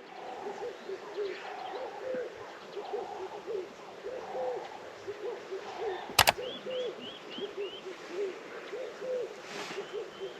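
Doves cooing over and over in a morning bird chorus, with another bird giving a series of short rising calls about halfway through. A sharp double click about six seconds in.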